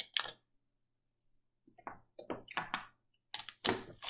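Plastic water bottle being handled and its cap twisted, giving short crackly bursts: one at the start, then a run of them after a pause of about a second and a half.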